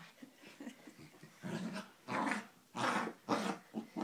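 Terrier growling in about four short bursts over the second half, while tussling with a hoodie over its head.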